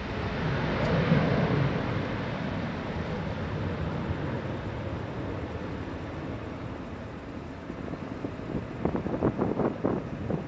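Jet engines of a Boeing 767-300 freighter rumbling as it climbs away after takeoff, loudest about a second in and slowly fading. Gusts of wind buffet the microphone near the end.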